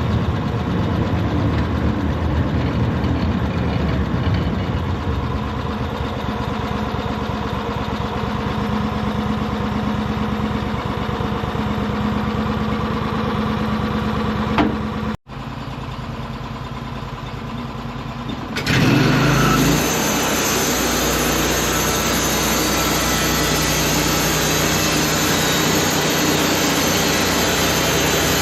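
Sawmill engine running steadily. From about 19 seconds in it grows louder and fuller as the blade cuts through a cedar log.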